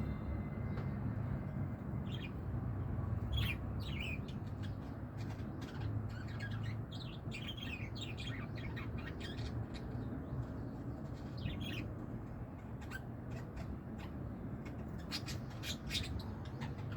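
Pet lovebirds chirping and squawking in short, scattered calls, over a steady low hum.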